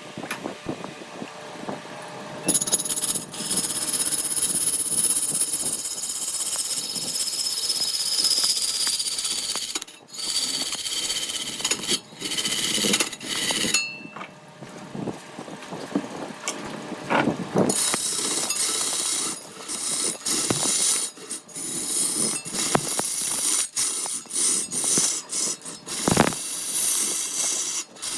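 Power tools working wood: a high-pitched whining run for about ten seconds, then a long series of irregular sharp clicks and knocks.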